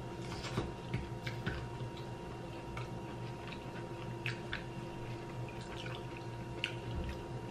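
Quiet eating: scattered short mouth clicks and smacks of people chewing food, over a steady low hum.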